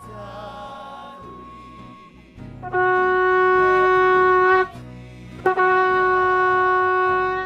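A blown horn sounding two long held notes at the same steady pitch, each about two seconds, with a short break between them. Soft music plays before the first note.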